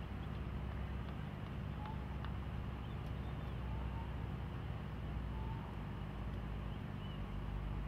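Steady background noise with a constant low hum and hiss, broken only by a few faint short chirps.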